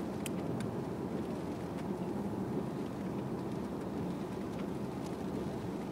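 Steady road noise inside a moving Volvo car's cabin: a low, even rumble of tyres on a wet road and the drivetrain.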